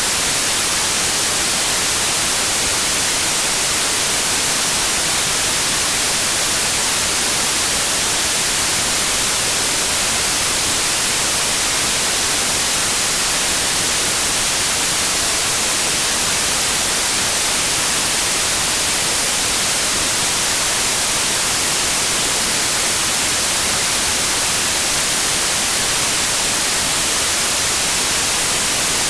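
Steady synthetic white noise: an even, unchanging hiss with no pitch, strongest in the treble.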